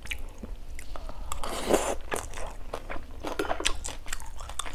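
Close-miked mouth sounds of someone chewing a mouthful of pan-fried rice-flour cake with egg (bột chiên), with many small sharp clicks and one longer, noisier burst about a second and a half in.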